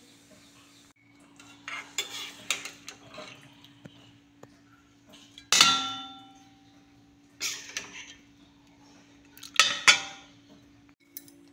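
Metal ladle scraping and clanking against a kadhai and a stainless steel bowl as cooked potato and bottle-gourd curry is served out: a scatter of sharp metal knocks, the loudest about five and a half seconds in, ringing briefly.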